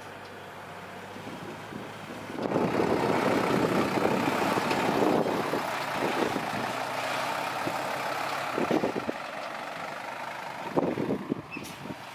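A heavy diesel truck or earthmoving machine engine running. It gets much louder about two seconds in and eases off somewhat partway through, with a few short knocks near the end.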